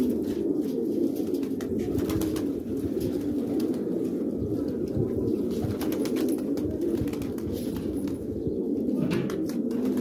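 A flock of domestic pigeons cooing steadily, many calls overlapping, with a few short clicks here and there.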